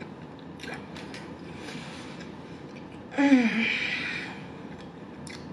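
A woman eating: quiet chewing and mouth clicks, then about three seconds in a short appreciative "mm" hum that falls in pitch, followed by a breathy exhale lasting about a second.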